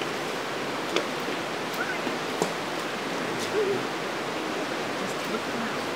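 Steady rush of water running over the rocks of a shallow river, with a few sharp clicks about a second and two and a half seconds in.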